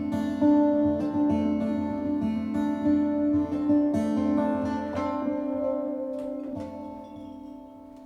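Acoustic guitar strumming the closing chords of a song. The last chord, about six and a half seconds in, is left to ring and fade away.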